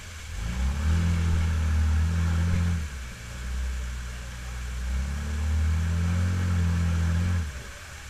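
Jeep's engine revving under load in two long bursts of two to three seconds each, the pitch rising and then held, as it tries to climb a rock ledge in a waterfall. Rushing water from the falls runs underneath.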